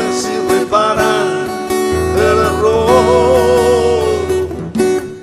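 Acoustic song: a strummed acoustic guitar under a solo singing voice, which holds a long wavering note with vibrato from about two seconds in until near the end.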